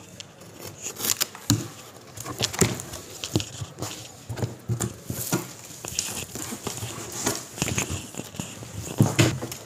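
Large corrugated cardboard box being opened by hand: packing tape cut with a box cutter, then the top flaps scraped and folded back, giving an irregular run of knocks, scrapes and rustles.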